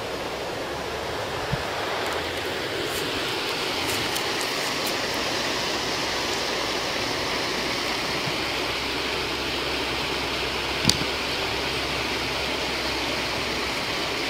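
Steady rushing hiss of flowing water, with a few faint ticks and one sharp click about eleven seconds in.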